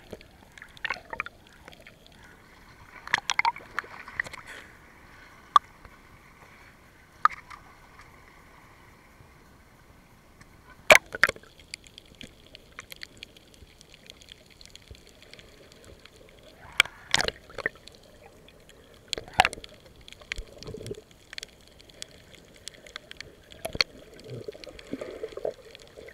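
Water sloshing and gurgling heard through a waterproof camera as it moves at and below the surface, with a handful of sharp knocks and a few seconds of steady hiss near the start.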